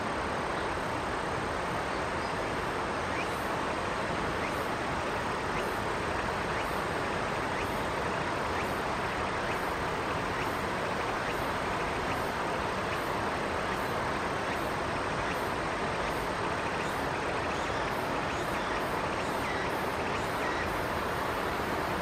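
Steady rushing of a river's flowing water.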